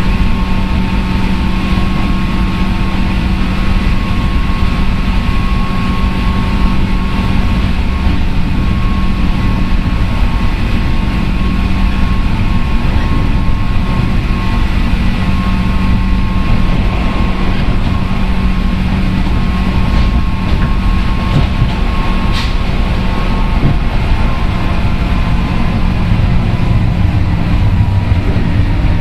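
Running sound inside a JR West 103 series electric train's motor car (MoHa 103): a steady hum from the DC traction motors and gears, holding one pitch, over the rumble of wheels on the rails. A single sharp click comes about 22 seconds in.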